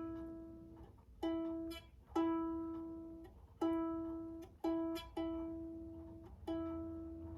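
Eddy Finn EF-PNUT soprano ukulele being tuned: one string plucked six times, the same single note ringing out and fading after each pluck.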